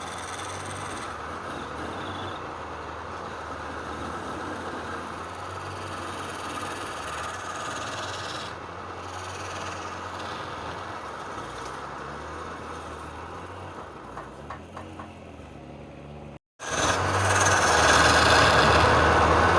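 Wood lathe running steadily with a motor hum, and the hiss of a turning tool cutting the spinning wood. About three-quarters of the way through the sound cuts out for a moment, then comes back louder.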